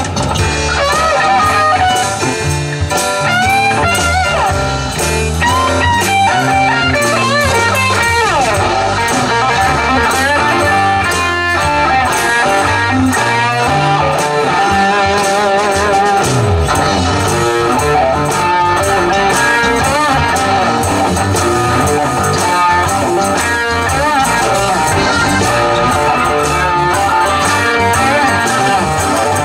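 Live rock band playing an instrumental passage: an electric lead guitar with bent notes over bass guitar and drums.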